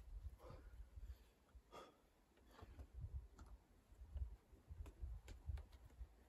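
Faint breaths from a boulderer working up the rock, a few short exhalations in the first three seconds, then light clicks and scuffs of hands and climbing shoes on the rock.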